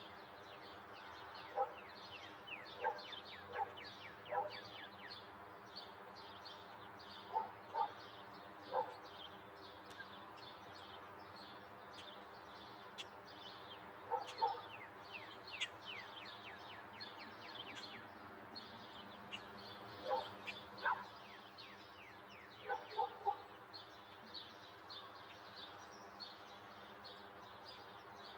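Suburban daytime bird ambience: many small birds chirping with quick, high, falling notes. A louder, lower call sounds in short clusters of two or three every few seconds, over a steady faint background hum.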